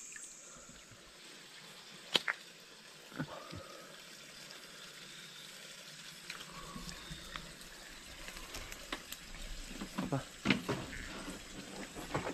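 Faint splashing and trickling of water in a shallow rocky stream as a hand and a thin spear are worked through it. A few sharp knocks are heard, the loudest about two seconds in, with a cluster of clicks near the end.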